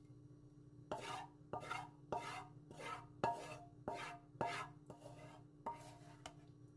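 A kitchen utensil scraping against cookware in a run of about ten strokes, roughly two a second, that begins about a second in and stops near the end.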